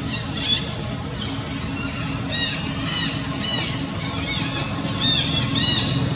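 A run of short, high-pitched rising-and-falling animal squeals, about two a second, over a steady low hum.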